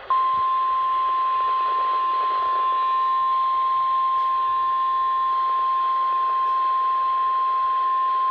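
NOAA Weather Radio warning alarm tone: one steady, loud, single-pitched tone of about 1050 Hz, held unbroken over a background of radio hiss. It marks the start of a National Weather Service warning broadcast.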